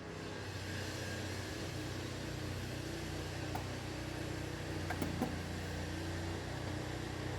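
Engine idling steadily, with a few light clicks and a small knock about five seconds in from handling a cooling-system pressure tester on the radiator.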